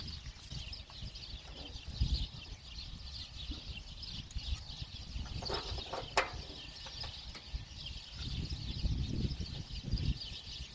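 Birds chirping steadily in the background, with a low rumble and a sharp click about six seconds in, typical of hands and tools working under a car's bonnet.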